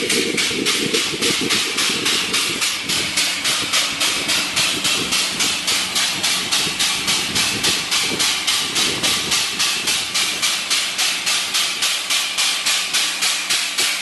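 Air-operated double-diaphragm pump cycling steadily while pumping waste oil, its air exhaust hissing in rapid, even puffs about four a second.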